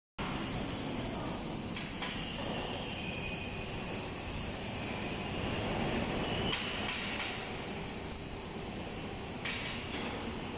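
Handheld laser welding machine running: a steady high hiss, with two short sharp clicks a little past the middle.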